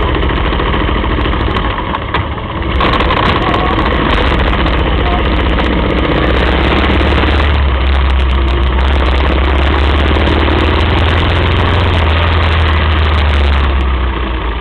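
Moto Guzzi sidecar outfit's V-twin engine running under way, heard from the sidecar, with a steady low drone over a constant rush of noise. The drone grows louder about three seconds in and eases off near the end.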